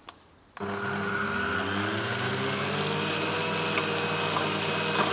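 Electric stand mixer's meat grinder attachment switching on about half a second in and running with a steady motor hum, its pitch rising briefly as it comes up to speed, while partly frozen pork and pumpkin are fed through it.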